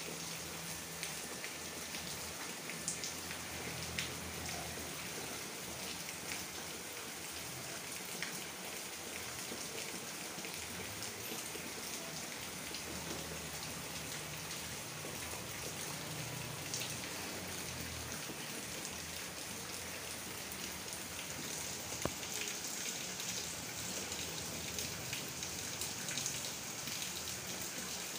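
Steady rain falling on the ground and foliage, an even hiss with occasional sharper drop taps.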